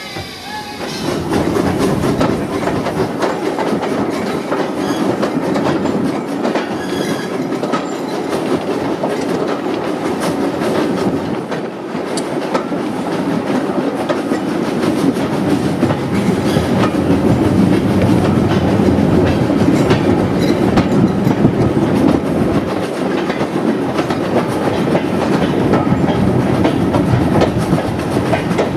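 Heritage railway carriage running along the track, its wheels clattering over the rail joints in a steady rattling rumble that swells about a second in as the train gets under way.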